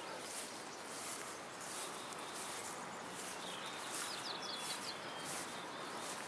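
Birds chirping over a steady outdoor hiss, with a quick run of short, high chirps about four seconds in.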